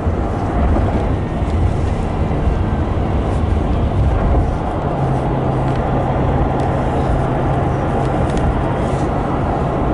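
Vehicle driving: a steady road and engine rumble, with a low steady hum coming in about halfway through.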